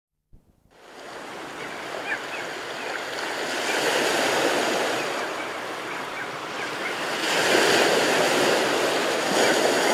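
Ocean surf: waves washing in, swelling twice and easing back, then cut off suddenly at the end. A few faint high chirps about two seconds in.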